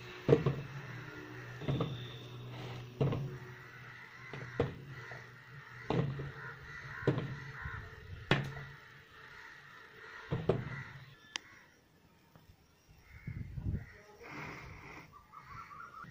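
Raw green mangoes being dropped one at a time into a plastic tub, a sharp knock every second or so that stops about two thirds of the way through. Crows cawing.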